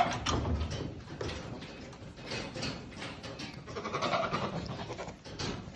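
A castrated male goat calling several times, loudest about four seconds in. The calls are rutting noises from a wether that still acts as if it wants to mate.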